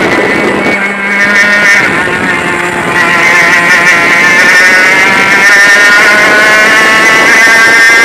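100cc two-stroke kart engine heard from the driver's seat, running hard at high revs. The revs dip about a second in as the kart slows for a corner, then climb steadily as it accelerates out.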